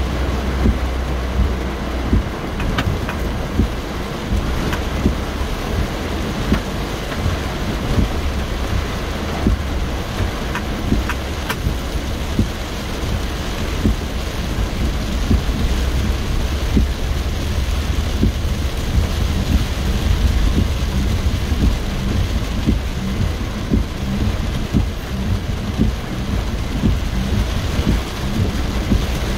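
Heavy rain drumming on a car's roof and windshield, heard from inside the cabin, over the steady low rumble of the car driving.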